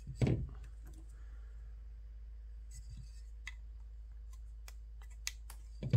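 Faint, sparse clicks and light handling noises of small drone frame parts being handled, over a steady low hum.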